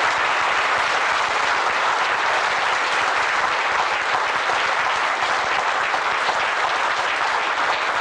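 Audience applauding, steady dense clapping that does not let up.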